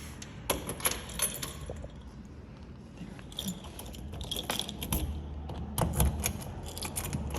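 A bunch of keys jangling in short bouts, with light metallic clicks.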